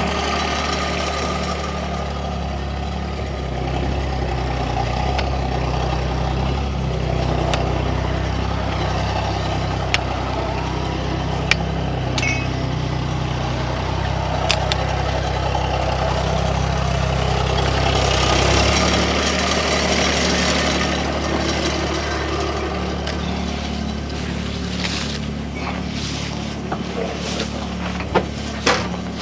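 Tractor engine running steadily while it tows a car out of the way. Its note changes about two-thirds of the way through, and a few sharp clicks and knocks sound over it.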